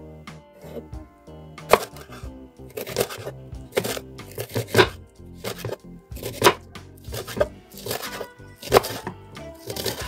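Kitchen knife chopping a vegetable on a wooden board: sharp knocks of the blade hitting the board, starting about two seconds in and coming about once a second. Background music runs underneath.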